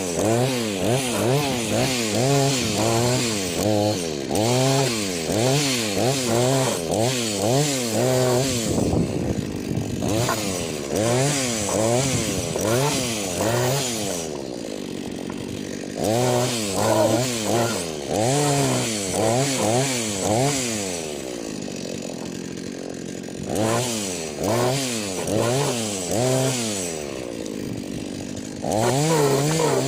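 Two-stroke chainsaw engine revved up and down over and over, about twice a second, with a few short spells of steadier, quieter running in between, as the saw is warmed up before work.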